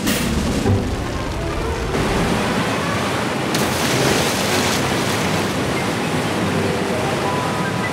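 Cartoon sound effect of a huge rush of gushing water, a steady noisy surge that grows louder about two seconds in and swells most about three and a half seconds in, as the jet strikes the fiery sun.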